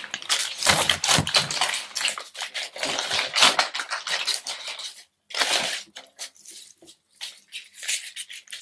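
Paper absorbent pad rustling and crinkling as it is unfolded and laid out. The crinkling is dense for about five seconds, stops briefly, then comes back as shorter, scattered crackles.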